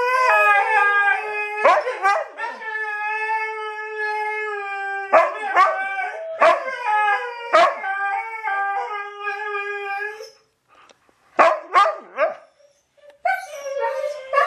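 Siberian huskies howling together: one long howl held for about ten seconds, sliding slightly down in pitch, with short sharp calls from another husky breaking in over it several times. After the long howl stops there is a short pause with a few brief calls, then howling starts again near the end.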